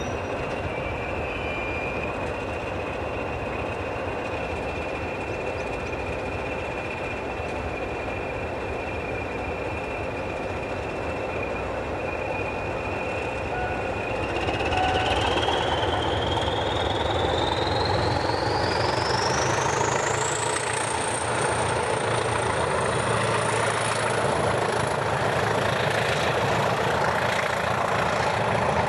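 Pair of Class 20 diesel locomotives under way, their English Electric engines running with a high turbocharger whistle. About halfway through the engines get louder and the whistle rises steeply in pitch and then holds high as the locos open up.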